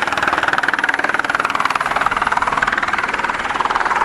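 Light helicopter hovering low as it comes in to land, its main rotor blades beating in a fast, even chop.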